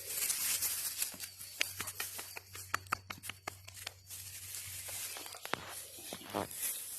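Rustling and crinkling with many scattered sharp clicks, over a faint steady low hum.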